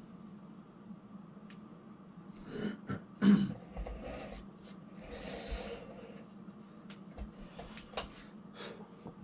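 A man clearing his throat about three seconds in, with breathing and a few sharp clicks of handling over a steady low hum.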